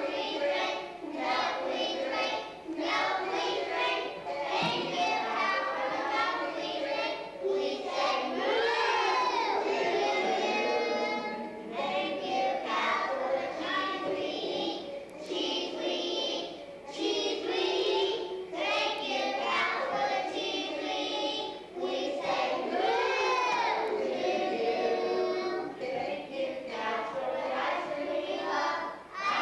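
A group of preschool children singing a song together, with a long held, rising-and-falling phrase that comes round twice.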